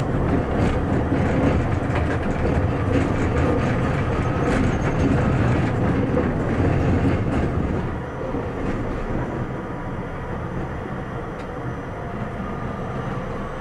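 Tram running on its rails, heard from the driver's cab: a steady rumble with scattered wheel clicks. It grows quieter about eight seconds in as the tram slows toward a stop, and a faint falling whine comes in near the end.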